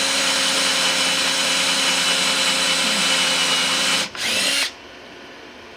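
Electric drill running steadily while drilling a hole, stopping about four seconds in, then a short second burst before it cuts off.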